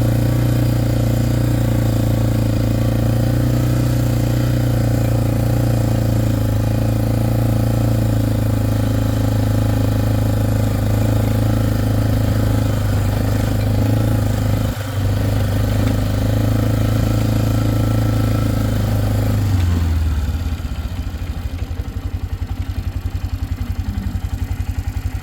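Vehicle engine running at a steady speed, then dropping to a slower, pulsing idle about twenty seconds in.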